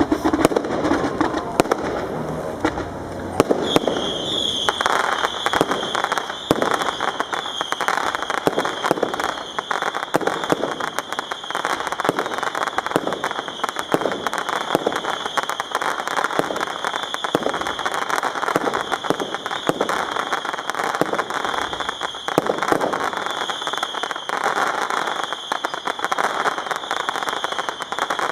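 Aerial fireworks display: a dense, continuous crackling and popping of bursting shells and crackling stars. A steady high whine runs underneath from a few seconds in.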